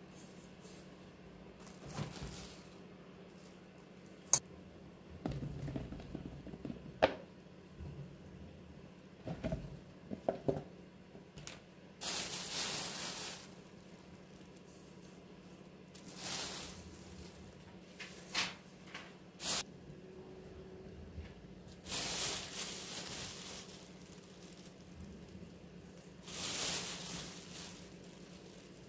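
Granulated sugar sprinkled from a spoon over mulberries in a pot, heard as several soft hisses of a second or two each. Between them come a few sharp clicks of the spoon against the pot, over a faint steady low hum.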